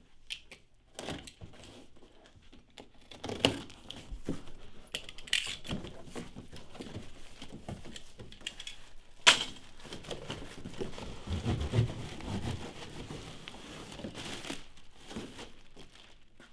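A keyboard stand's box being opened and its plastic-wrapped contents handled: irregular crinkling, rustling and tearing of packaging with scattered knocks, and one sharp click about nine seconds in.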